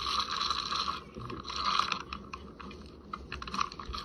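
Spincast fishing reel being cranked in short spells of a second or so with pauses between, a clicking, whirring retrieve of the line.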